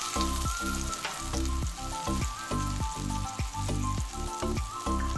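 Bean-and-oat veggie burger patties sizzling in oil in a frying pan, under background music with a steady beat.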